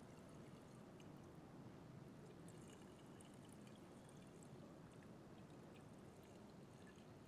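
Two-stroke fuel mix pouring faintly and steadily from a gas can's spout into a chainsaw's fuel tank.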